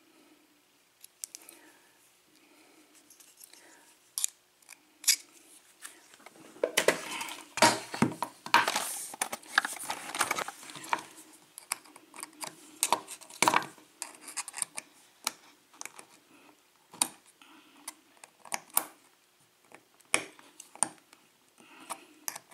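Small metal clicks, scrapes and rattles of tools working a euro cylinder lock, prying at the plug's retaining clip, with a dense stretch of scraping and rattling about seven to eleven seconds in.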